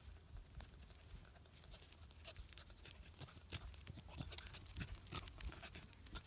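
Faint footsteps and grass rustling on a dirt track, with a beagle close by, panting. The short scuffs and rustles come more often and louder from about halfway through.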